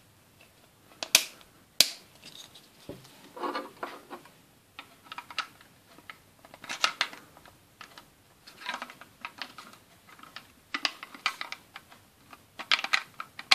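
Small hard plastic toy-furniture parts clicking and clattering as they are handled and pressed together: a grip pressed onto a Playmobil wardrobe drawer and the drawer fitted into the wardrobe. There are two sharp clicks about one and two seconds in, then scattered light taps and rattles.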